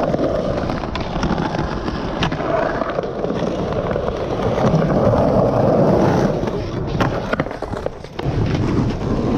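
Skateboard wheels rolling over stone paving tiles, a steady gritty rumble, with a few sharp clacks of the board hitting the ground.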